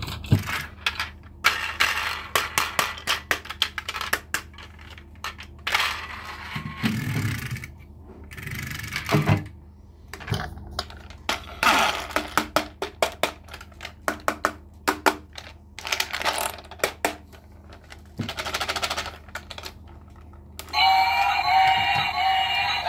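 Hard plastic of a toy train being handled: irregular clicks, taps and short rattles. About 21 s in, the battery toy locomotive switches on and its electronic tune starts playing.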